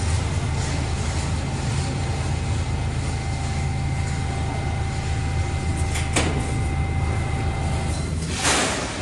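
A stationary R68 subway train hums steadily at the platform, with a single click about six seconds in. Near the end the hum fades and a short burst of air hiss follows.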